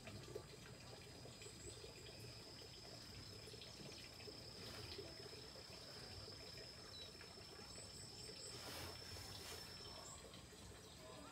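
Near silence, with a faint steady high insect trill that fades out near the end and a couple of faint chirps.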